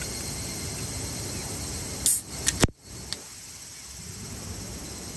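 A can of Sapporo Black Label beer cracked open about two seconds in: a sharp hissing pop of released carbonation, then a couple of sharp clicks from the pull tab, over a steady outdoor background.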